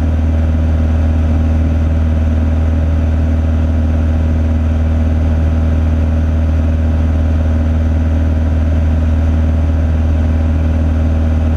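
Cessna 182's six-cylinder piston engine and propeller droning steadily in flight, heard inside the cabin as a loud, even, low hum with no change in pitch.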